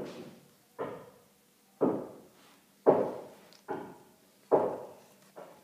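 A steady series of sharp knocks, about one a second, each ringing briefly after the hit.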